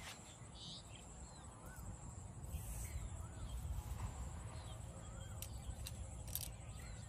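Open-air rural ambience: a bird calling repeatedly, short rising-and-falling notes about a second apart, over a low rumble, with a few light clicks near the end.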